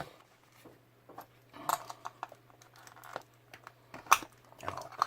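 Scattered light clicks, taps and rustles of small plastic and metal parts being handled and prodded with a screwdriver during the teardown of a Bluetooth radio alarm speaker, over a faint steady low hum.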